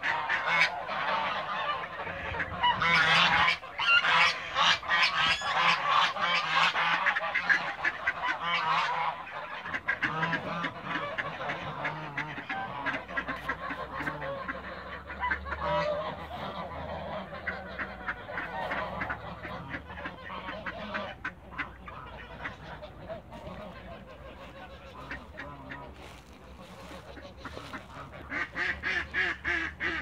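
A flock of domestic geese, Toulouse geese among them, honking in a loud, dense chorus for about the first nine seconds, then calling more sparsely and quietly. Near the end a run of quick, evenly spaced calls starts up.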